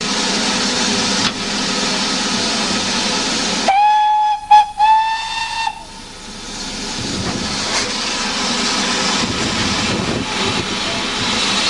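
Steam locomotive hissing steam, then its whistle sounds about four seconds in: three blasts, a short one, a very brief one and a longer one. The hiss and a steady rumble carry on after it.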